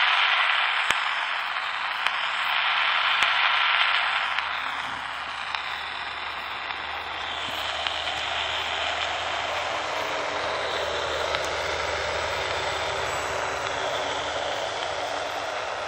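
Radio static hissing from the speaker of a Danita 86 six-channel walkie-talkie, loudest for the first four seconds, then a little softer with faint wavering whistles in it. A low rumble grows under the hiss in the second half.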